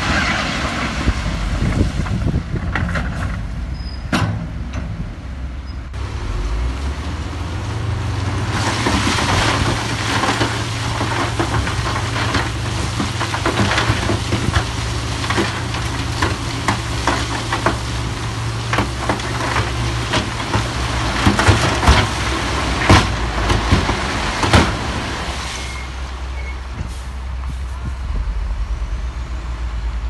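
Diesel engine of heavy earthmoving machinery running under load, with many sharp clanks and knocks. The engine note grows fuller about eight seconds in and eases off near the end.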